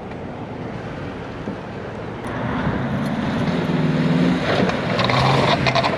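A vehicle's engine running under load and revving up as it drives through wet mud, growing louder and higher about halfway through. A few sharp knocks or spatters come near the end.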